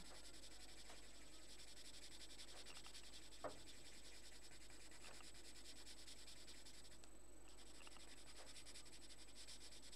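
Faint rapid scratching of a coloured pencil shading on paper in quick back-and-forth strokes, pausing briefly about seven seconds in. One short tap sounds about three and a half seconds in.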